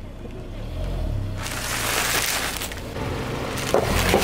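A car engine hums low and steady, with a rush of tyre noise in the middle, then near the end crackling and crunching as the car's tyre rolls onto bags of puffed snack chips, bursting the bags and crushing the chips.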